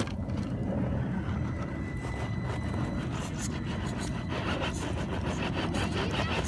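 Tamiya CC-01 RC crawler's electric motor and drivetrain whining as its tyres crunch and clatter over loose shale, under a steady low rumble. The crunching grows busier about four seconds in.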